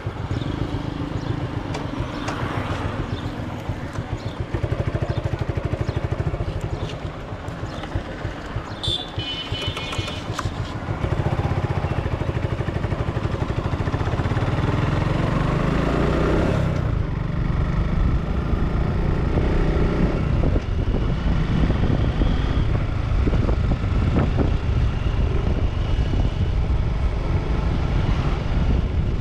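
Motorcycle engine running under the rider as the bike pulls away from a standstill and accelerates, getting louder about eleven seconds in, with the revs rising as it speeds up. A short high-pitched tone sounds about nine seconds in.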